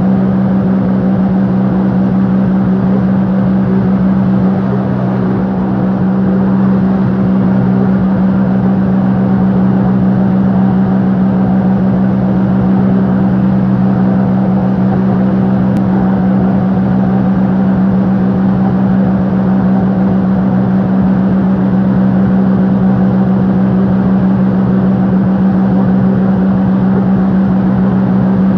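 Motorboat engine running steadily at speed, an unchanging loud drone with no let-up.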